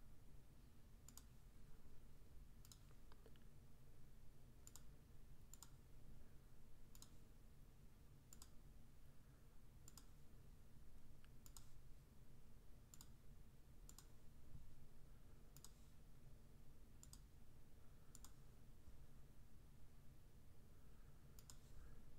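Faint computer mouse clicks, one every second or so, each placing a point of a polygon lasso selection.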